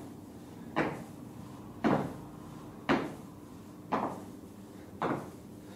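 Repeated squat-jump landings: sneakered feet thumping onto rubber gym flooring five times, about once a second in a steady rhythm.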